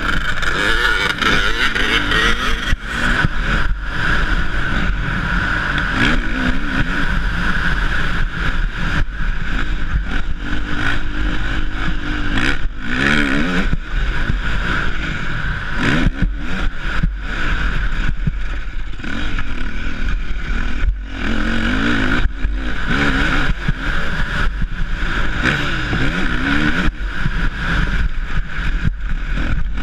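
Motocross dirt bike engine revving up and falling back again and again as it is ridden hard over the track, with short drops where the throttle is shut. It is heard from a helmet-mounted camera on the rider.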